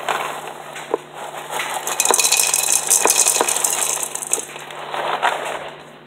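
Froot Loops cereal rattling in its cardboard box as it is shaken and poured into a bowl: a dry rattle with scattered clicks, loudest from about two to four and a half seconds in, then dying away.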